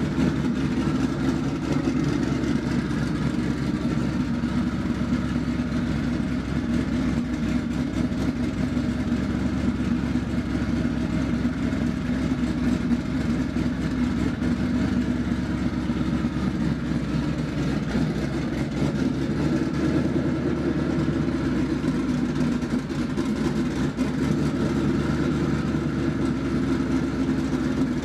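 Twin-turbocharged Ford 4.6-litre two-valve V8 idling steadily through open downpipes, so the exhaust is unmuffled.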